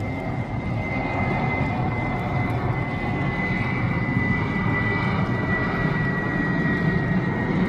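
Jet airliner flying low on landing approach: a steady engine rumble with a high whine that slowly drops in pitch, growing slightly louder.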